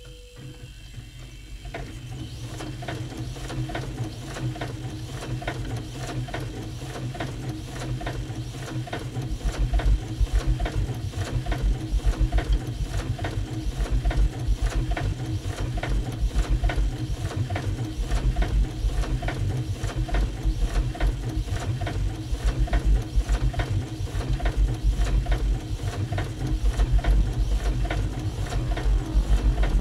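Rapid, evenly repeating mechanical clatter of a printing press, looped and layered into an experimental piece of music. About nine seconds in it grows louder as a deep pulsing low beat joins.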